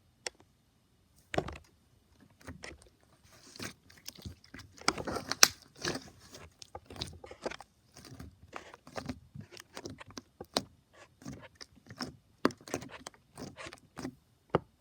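Crunchy slime being squished, giving a run of irregular crackles and small pops, densest about five seconds in.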